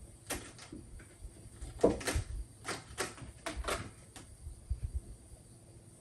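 A quick series of short knocks and scrapes, about eight in four seconds, the loudest about two seconds in, like something hard being handled or knocked about.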